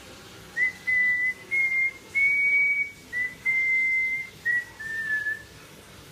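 African grey parrot whistling a short tune: about eight clear, steady notes at nearly one pitch, some short and some held, the last one dipping slightly.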